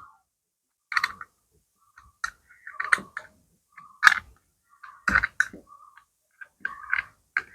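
Sharp metal clicks and taps at irregular intervals, about ten in all, from a hand tool working a nut and bolt. The nut is being tightened to clamp a hand planer blade in a sharpening jig.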